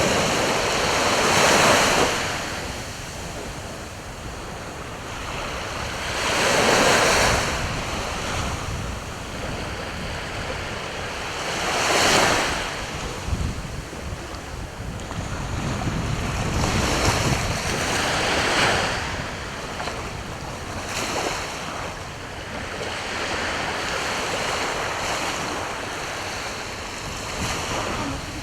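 Sea waves breaking and washing onto the shore, the surf swelling loudly every five seconds or so and then ebbing.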